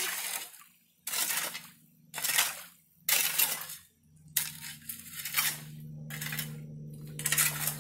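Metal shovel scraping and digging into the wet soil and leaf litter of a streambed, five gritty strokes about a second apart, the fourth one longer.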